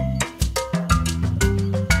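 Upbeat background music with a steady percussion beat, bass notes and a bouncy melody of short notes.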